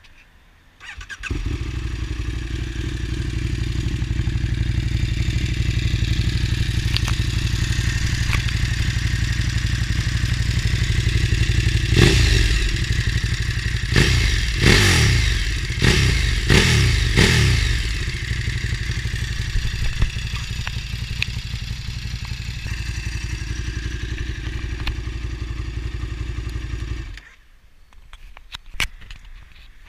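KTM 1290 Super Duke's V-twin engine through an SC-Project slip-on exhaust: it starts about a second in and idles, then is revved in a series of sharp throttle blips around the middle, each falling back to idle, and is switched off near the end.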